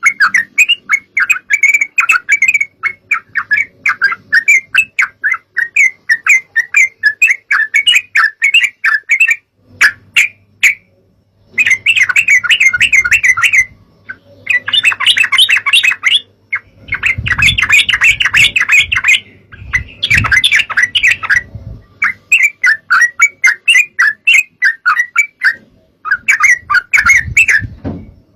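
Yellow-vented bulbuls singing: rapid, bubbly chattering phrases of quick repeated notes. There is a brief pause about ten seconds in, then several more bursts of song.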